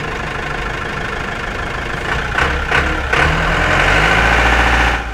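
Bulldozer engine sound effect running steadily, with a few sharp knocks about two and a half seconds in. It then grows louder and cuts off suddenly near the end.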